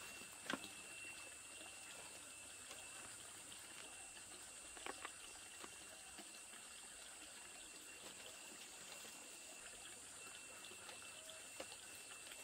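Near silence: faint steady high-pitched background hiss, with a few soft clicks and rustles from banana leaves being handled.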